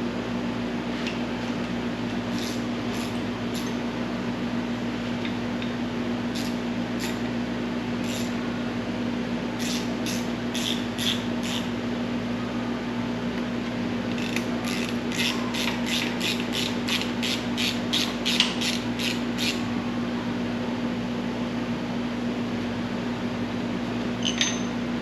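Hand ratchet clicking in short bursts as lubed bolts are run down, with a quick regular run of clicks about halfway through. A steady hum sits underneath.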